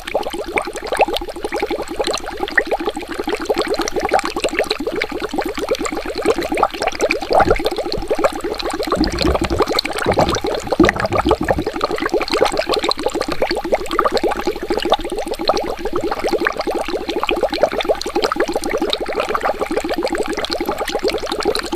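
Water bubbling in a steady, rapid, continuous stream of bubbles, with a deeper low rumble joining for a few seconds in the middle.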